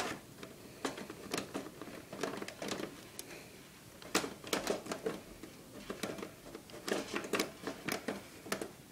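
Irregular clicks, knocks and scrapes of an optical disk drive being pushed into a computer case's top drive bay, metal and plastic rubbing as it struggles to slide in.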